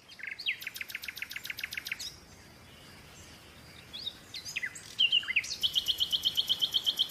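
Birds chirping: a fast trill of high, quickly repeated chirps, a gap of about two seconds, then a few single calls and another fast trill near the end.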